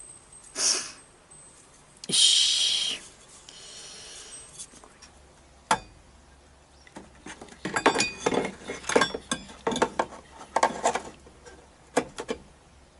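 Small metal parts and tools clinking, clicking and scraping as a part is fitted into a model steam boat's brass engine compartment, the clicks coming thick from about halfway through. A brief loud rushing noise sounds about two seconds in.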